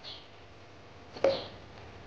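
A seasoning jar handled over a pan: one sharp click about a second in, with a brief soft hiss after it.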